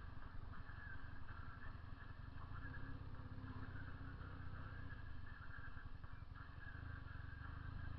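Honda CB 400 II motorcycle's air-cooled parallel-twin engine running steadily as the bike is ridden, a low, even exhaust note.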